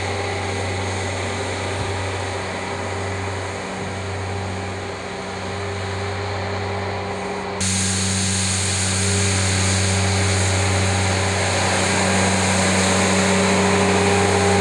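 Compact loader's engine running at a steady speed while its front-mounted rotary broom spins and sweeps snow, a constant hum under a brushing hiss. About seven and a half seconds in the sound jumps louder and brighter.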